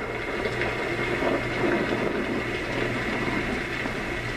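Homedics SoundSpa clock radio playing its thunderstorm nature-sound track: a low, uneven rumble of thunder over a steady hiss.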